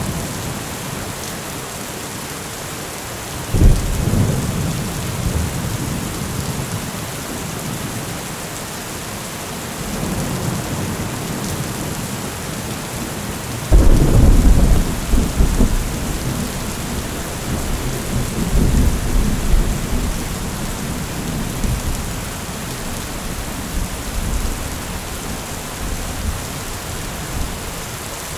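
Heavy rain falling steadily, with thunder. A clap comes about three and a half seconds in, and a louder one a little before the midpoint, followed by several seconds of rolling rumble.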